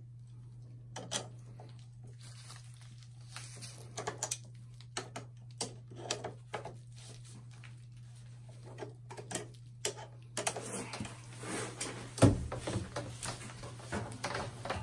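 Scattered clicks, taps and knocks of a wrench working a fitting on the end of blue plastic water tubing and of the coiled tubing being handled, growing busier in the last few seconds with one loud knock. A steady low hum runs underneath.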